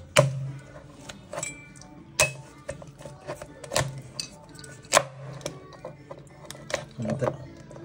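Cleaver chopping through a cleaned mud crab shell on a wooden cutting board: several sharp chops of the blade striking the board, roughly a second apart, the loudest about five seconds in.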